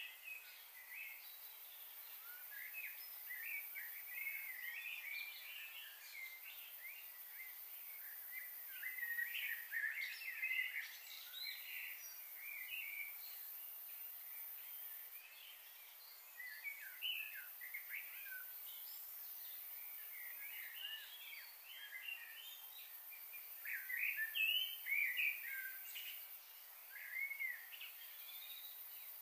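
Small birds chirping and twittering on and off throughout, busiest around ten seconds in and again near the end, over a steady faint high hiss.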